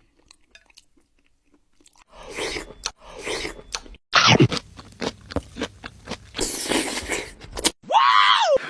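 Crunching and scraping sounds with sharp clicks begin about two seconds in and build to a dense crackle. They end in a short pitched call that rises and falls.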